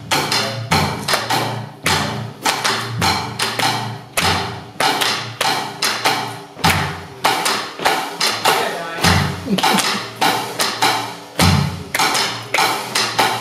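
A drum kit played with sticks: a steady run of cymbal and drum strokes, with heavier low drum hits every two seconds or so.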